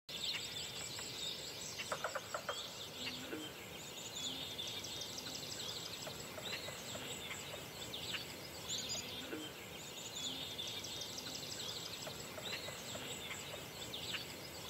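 Quiet outdoor ambience of many birds chirping and trilling, with short calls overlapping all through and a low short note repeating underneath.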